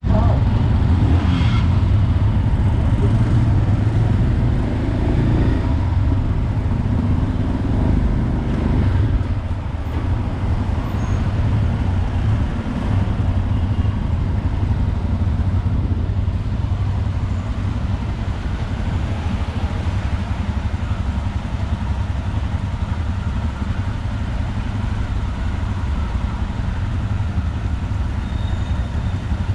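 Royal Enfield Himalayan 411cc single-cylinder motorcycle engines running at low speed while the bikes ride off slowly, heard close up from one of the bikes. A little louder and more uneven in the first nine seconds, then a steady low rumble.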